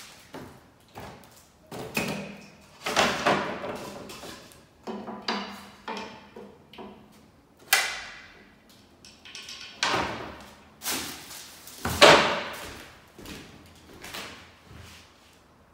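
Irregular knocks, thuds and clatters of wooden ceiling-fan blades and fan hardware being handled and set down, several separate bumps with the loudest near the end.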